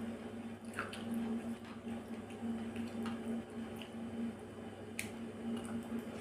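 Metal chopsticks working through a wet, dressed carrot and salmon salad in a ceramic bowl, with soft squishing and a few sharp clicks against the bowl, the clearest about five seconds in. A steady low hum runs underneath.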